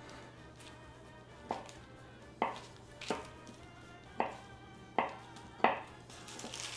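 Chef's knife cutting through slices of pound cake and knocking down onto a wooden cutting board: six sharp knocks, roughly one a second, starting about a second and a half in.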